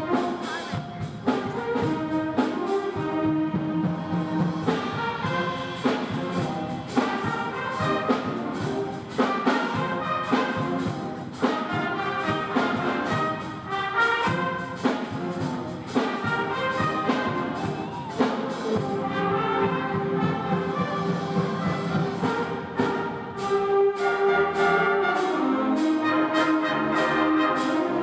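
Middle school concert band playing, led by brass such as trumpets and trombones, over a regular percussion beat. Toward the end the band swells into louder held chords.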